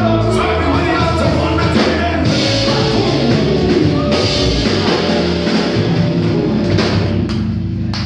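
Live band playing, with a drum kit and guitar under a singer's voice.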